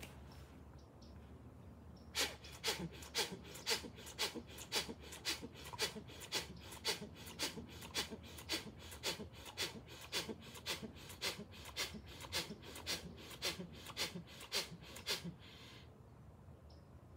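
Bhastrika/kapalabhati pranayama: a fast, even run of forceful pumped breaths, about three a second. They start about two seconds in and stop abruptly a couple of seconds before the end.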